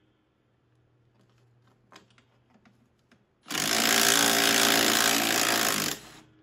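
A power tool, most likely an impact wrench, runs in one loud burst of about two and a half seconds, driving the bolt of a riding mower's deck pulley. Before it there are a few faint clicks of handling.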